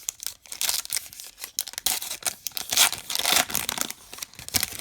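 A baseball card pack's wrapper being torn open and crinkled, a run of crackling rustles that stops near the end.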